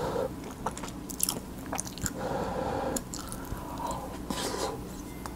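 Close-up chewing and biting of a spoonful of kimchi fried rice with a fried quail egg: wet mouth sounds with scattered sharp clicks.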